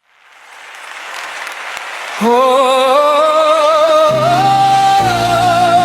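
Worship music intro: a hissing wash of sound swells up over about two seconds, then a voice comes in on a long, wordless held note with vibrato, and low sustained chords enter beneath it about four and five seconds in.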